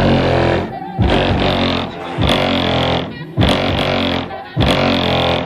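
Bass-heavy rap music played loud through two 10-inch Alpine Type S subwoofers in a custom ported box tuned to 40 Hz, with a heavy beat hitting about once a second.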